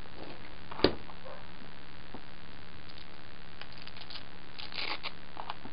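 A knife cutting a small piece of adhesive-backed Velcro on a cutting mat, with one sharp click about a second in. Faint scratches and clicks follow near the end as the piece is picked up and handled.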